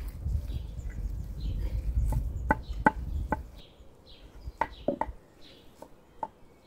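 A scattered series of sharp knocks and short clucking-like calls over a low rumble that fades about halfway through, with small birds chirping faintly.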